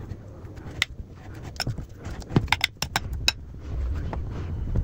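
Pastry brush spreading softened butter over a thin dough sheet in a baking pan, with a run of light clicks and taps from the brush, then a low muffled rumble near the end.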